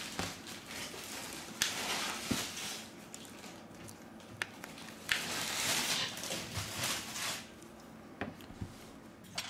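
Handling noise of a smartphone being turned over and pressed in gloved hands: rustling and rubbing in two longer stretches, with several sharp plastic clicks and taps.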